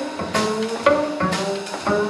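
Live jazz from a trio of double bass, drum kit and saxophone playing a funky blues, with walking pitched notes under regular cymbal and drum strokes.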